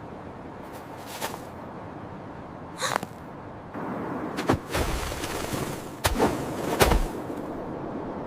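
Cartoon sound effects: a steady hiss with several sudden knocks and heavier thumps, the heaviest in the second half.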